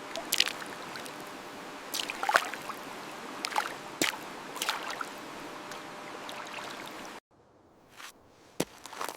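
Mechanical keyboard switches clacking underfoot in clusters about once a second, over a steady hiss. The hiss cuts off abruptly about seven seconds in, and a few single sharp clicks follow.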